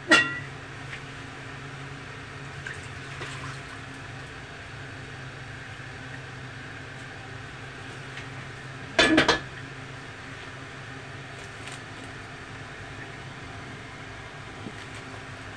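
A metal wok clanks on the gas stove's grate as it is lifted. Fish broth is then poured from it into a soup pot, faint under a steady low hum. About nine seconds in, the emptied wok is set back down on the grate with a second loud clank.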